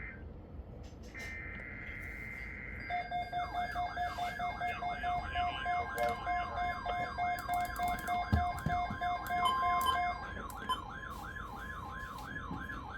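Emergency Alert System data bursts (the warbling SAME header) ending a few seconds in. Then several weather radios and alert devices sound their tornado-watch alerts at once: a fast siren-like sweep repeating about two and a half times a second over steady beeping tones, joined near the end by a long steady alert tone.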